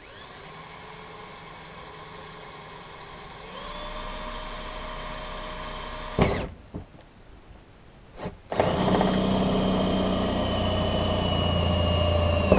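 Cordless drill boring through a car's plastic rear bumper for a parking sensor: the motor runs at low speed, then faster, with a sharp knock about six seconds in. After a short pause with a couple of clicks it runs hard again, its pitch sagging slightly under load, and stops at the end.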